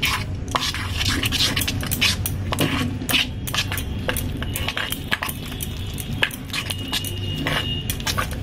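Metal spoon stirring thick moong dal batter in a stainless steel bowl: a quick, irregular run of clinks and scrapes against the bowl.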